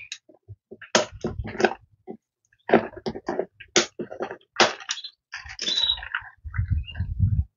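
Handling noise from a bird carrier: irregular rustling, scraping and knocks as a hand works inside it under a cloth cover to catch small finches, with a denser scraping rumble near the end.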